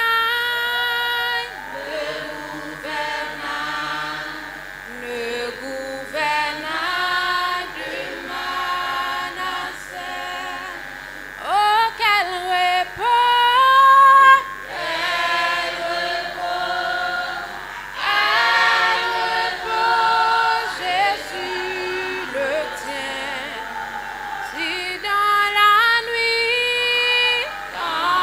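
Youth choir of mostly female voices singing a hymn unaccompanied, several parts in harmony.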